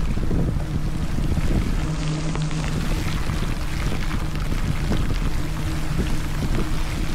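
Wind buffeting the camera's microphone while riding a Specialized Rockhopper mountain bike, with steady tyre rumble, a faint low hum and scattered small clicks and rattles.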